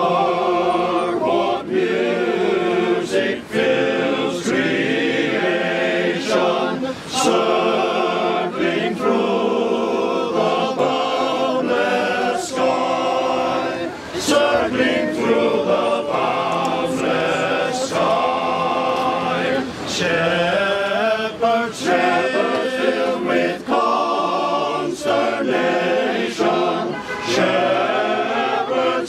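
A choir singing a Christmas carol, in phrases with short breaks between them.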